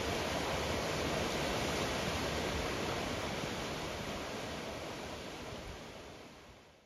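Steady rush of a mountain stream, fading out over the last few seconds.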